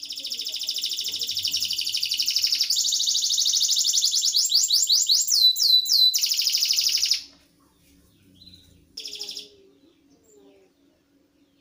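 Domestic canary singing a long, very fast rolling trill, high-pitched and even, that turns into a run of quick rising sweeps before stopping abruptly about seven seconds in. A short burst of song follows about two seconds later.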